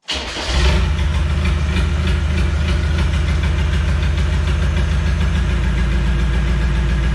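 Land Rover Discovery 1's four-cylinder turbodiesel engine firing at once and settling into a steady, loud idle, running without its exhaust fitted. It starts straight away after the new lift pump was primed by hand following a completely empty tank.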